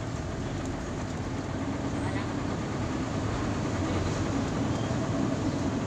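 Truck engine and cab noise heard from inside the cab while it drives slowly: a steady low drone that grows slightly louder.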